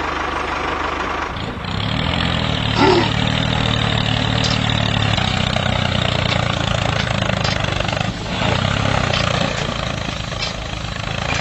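Mini tractor running steadily under power. Its motor note fills out and gets louder about a second and a half in, then holds even.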